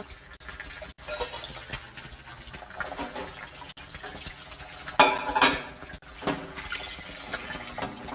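Kitchen clatter: cups, dishes and cutlery clinking and knocking, with a louder burst about five seconds in.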